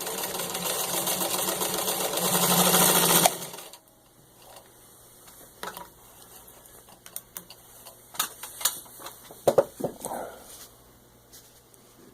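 1949 Singer 15-91 sewing machine running fast, stitching through four layers of denim, getting slightly louder before stopping abruptly about three seconds in. After that, scattered light clicks and knocks.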